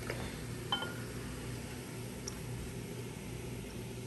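Prosecco being poured from its bottle into a glass punch bowl, a steady splashing pour over a low hum. There is one glass clink a little under a second in.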